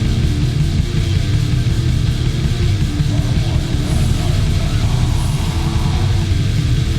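War metal recording: loud, heavily distorted guitars over dense, fast drumming, with no let-up.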